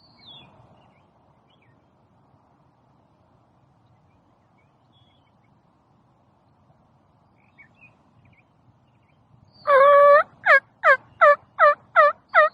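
A run of turkey yelps starting near the end: one longer note, then about seven quick, evenly spaced yelps, each dropping in pitch. Before this, faint chirps from small birds.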